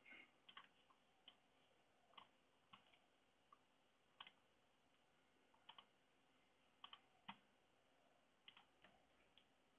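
Near silence broken by faint, unevenly spaced clicks of a computer mouse, some fifteen in all, a few in quick pairs.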